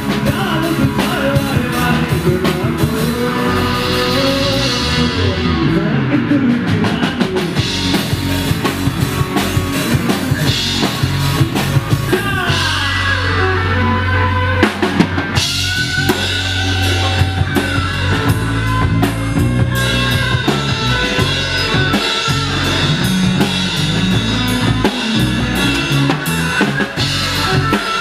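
Rock band playing live: drum kit, electric guitar, acoustic guitar and bass guitar.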